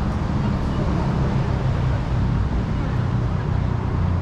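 Busy city street ambience: a steady low rumble of road traffic with passers-by talking.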